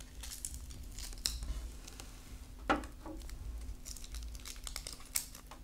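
Kitchen knife cutting into a red onion, the dry papery skin crackling and crinkling in small irregular clicks, with a sharper knock about two and a half seconds in and another near the end.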